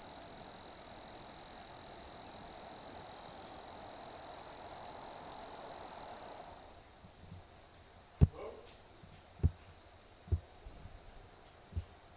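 Crickets trilling steadily and high-pitched, cutting off suddenly about six and a half seconds in. After that, a quiet background with four short dull thumps spaced about a second apart.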